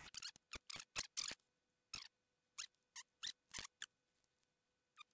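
A run of short, quiet clicks and taps at irregular intervals, about a dozen, from a Canon UC-X10 8mm camcorder being handled: its buttons pressed and its plastic case knocked while trying to eject a stuck tape.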